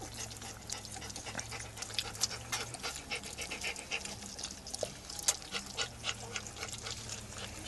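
Young puppies eating together from a shared feeding tray: many quick, irregular smacks and slurps.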